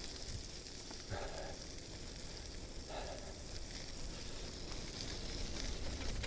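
Bicycle tyres rolling over a wet gravel and mud lane, a steady crackling hiss, with a low rumble of wind on the microphone.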